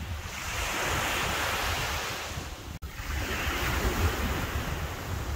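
Small ocean waves breaking and washing up the beach, with wind rumbling on the microphone. The sound drops out for an instant about halfway through.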